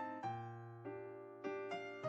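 Background music: soft electric piano chords, a new chord struck about every half second over a steady low bass note.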